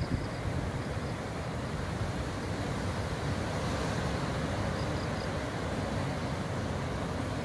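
Ocean surf breaking at the foot of sea cliffs, a steady rushing noise, mixed with wind on the microphone.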